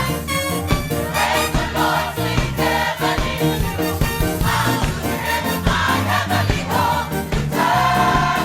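Gospel music with a choir singing over a steady beat, in an old-time church style.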